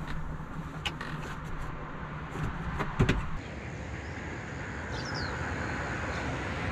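Camper van's sliding side door being worked: a few sharp clicks, then a heavy thump about three seconds in as it shuts, over a steady outdoor background noise.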